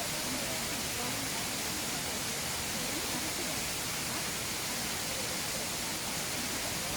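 Steady rushing of a waterfall, an even hiss that holds without change, with faint voices underneath.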